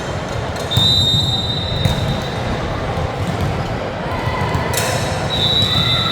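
Indoor volleyball game sounds in a gym hall: a steady bed of court noise and voices, a sudden high steady squeal under a second in that lasts about a second, a sharp hit near the end, then another high squeal.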